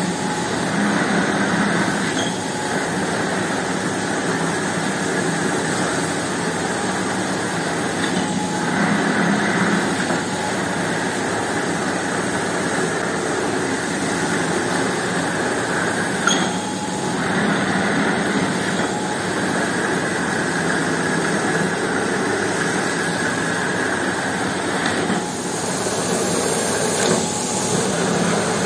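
Carpet-washing machinery running steadily: the electric motor drone of a rug-scrubbing machine and pressure-washer pump, with the hiss of a high-pressure water jet spraying onto the soaked rug. The sound dips briefly a few times.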